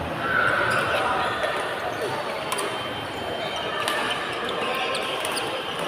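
Badminton play in a sports hall: a few sharp clicks of rackets striking the shuttlecock, about a second apart, over a steady background of voices echoing in the hall.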